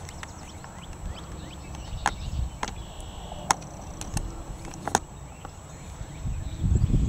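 Wind buffeting the microphone in uneven low rumbles, growing stronger near the end, with about five sharp clicks spread through the middle.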